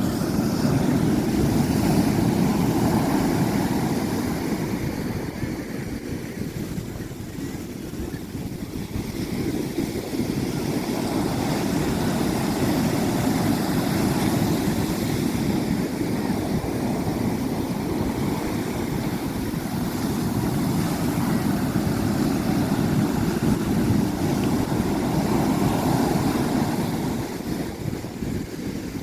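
Sea waves washing in, with wind rumbling on the microphone; the low rushing noise swells and eases slowly, dipping for a few seconds near the start and building again.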